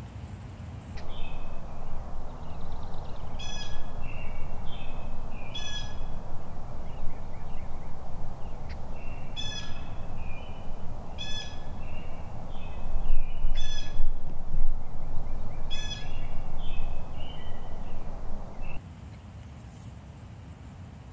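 Wild turkey gobbling, about six gobbles a couple of seconds apart, with shorter bird calls in between. This is the gobbling of a strutting tom's mating display.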